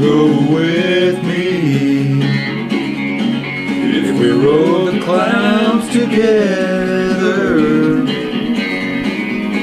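Country music: acoustic guitar under a melody line that slides and wavers in pitch, as in an instrumental break between verses.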